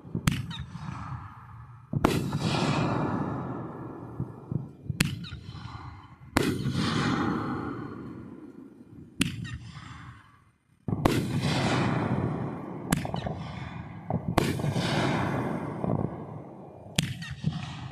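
Fireworks going off: about nine sharp bangs spaced one to three seconds apart, each followed by a rumbling, crackling tail that dies away.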